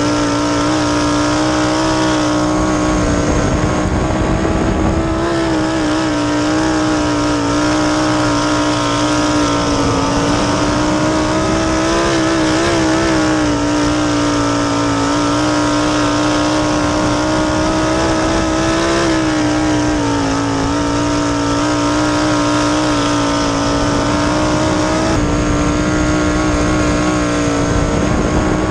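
Winged sprint car's 410 cubic-inch V8 running at high revs under racing load, heard onboard, its pitch holding nearly steady and sagging slightly a few times, with wind rushing over the car.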